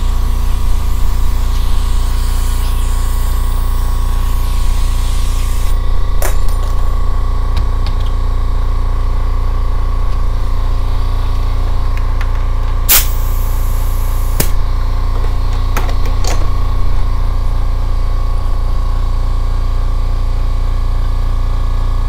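Air compressor running steadily with a loud hum. A hiss fades about six seconds in, and a few sharp snaps come through, the loudest about 13 seconds in.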